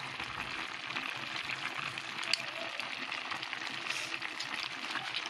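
Sautéed clams (ginisang halaan) simmering in their cooking liquid in a pan, a steady bubbling hiss. Scattered light clicks come from the shells as a silicone spatula stirs them.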